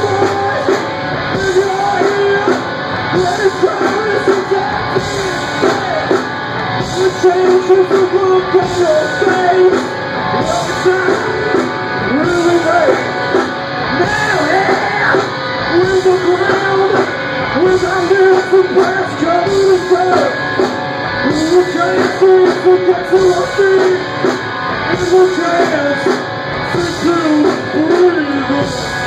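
Live rock band playing loud: electric guitar and drums, with a singer on a microphone.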